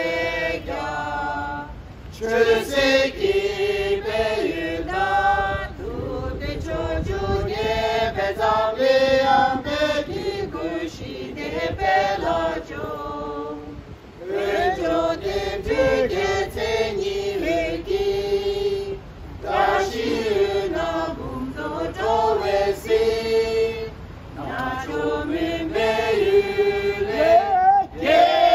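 A small group of men and women singing together in unison, a slow melodic song or chanted prayer in held lines with short breaths between phrases.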